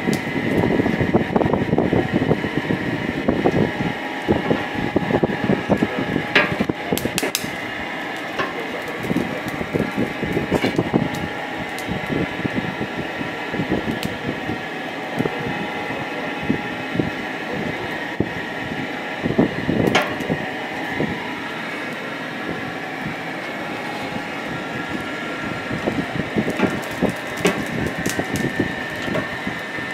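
Small pot forge burning hard under forced air: a steady rush from an electric blower with a faint motor whine, over the dense crackle of the burning fuel and a few sharp snaps.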